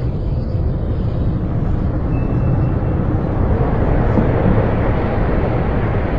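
Distant city ambience: a steady low rumble of traffic that swells slightly about four seconds in.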